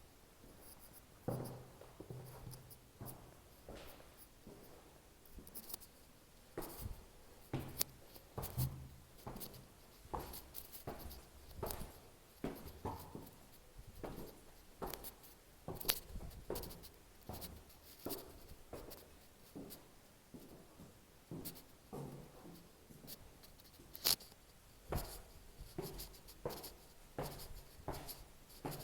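Scattered light clicks and knocks at an uneven pace, over a faint low hum.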